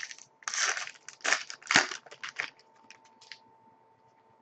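Trading card pack wrapper being torn open and crinkled, with the cards sliding out, as a quick string of rustles over the first two and a half seconds.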